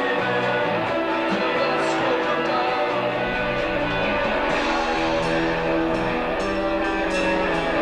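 Live rock band music: an instrumental passage led by guitar over sustained low notes.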